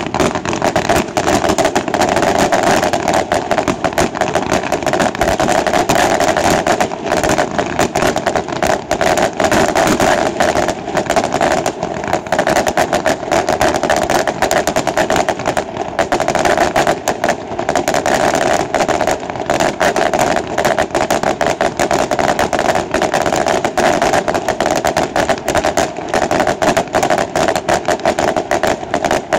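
Aerial fireworks display: an unbroken barrage of rapid bangs and crackle, many reports every second.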